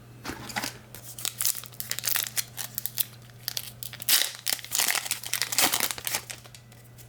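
Crinkling and tearing of a trading card pack's foil wrapper being ripped open and handled, in many irregular crackles.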